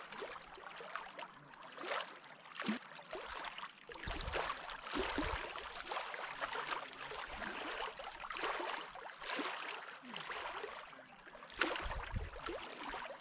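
Water splashing and lapping, with uneven sharp splashes throughout.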